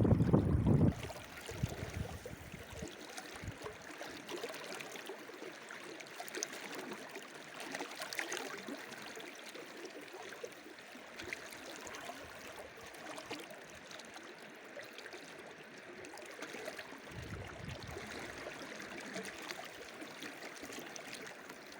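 Steady hiss of flowing water, like a stream, with faint small ticks and splashes throughout. Low rumbling wind noise on the microphone in the first second and again briefly about three quarters of the way through.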